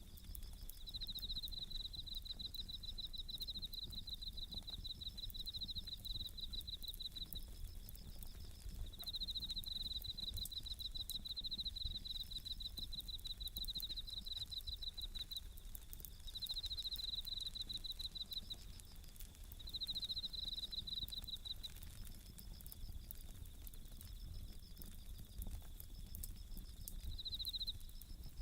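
Bell crickets (suzumushi) singing in repeated high trilled bouts of a second or two each, with faint crackling clicks from a wood campfire underneath.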